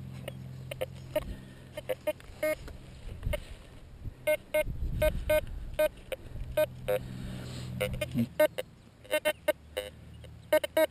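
Metal detector and pinpointer signalling over a freshly dug hole: short beeps repeat over a steady low hum, the hum stops about eight seconds in, and the beeps come faster near the end. Soil and tool scuffling is heard around the middle.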